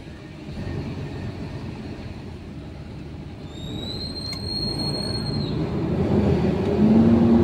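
Truck engine running with road noise inside the cab, growing louder as the truck picks up speed, the engine note rising near the end. A high, thin squeal sounds for about a second partway through.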